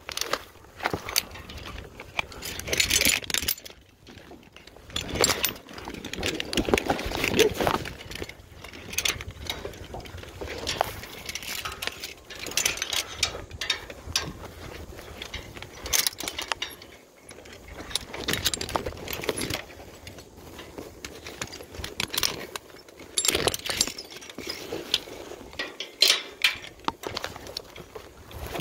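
Metal climbing hardware clinking and rattling, with irregular knocks and rustling.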